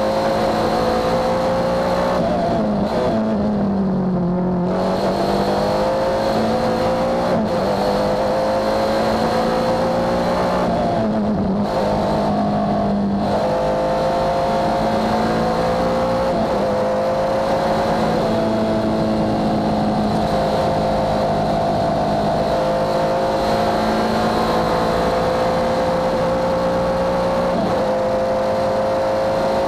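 Alfa Romeo Busso 12-valve V6 of a Lucchini SP94 sports prototype, heard from the cockpit, running hard on track. Its pitch climbs steadily through the gears with a short drop at each upshift, and it comes off the throttle and revs back down twice, about three and twelve seconds in, for corners.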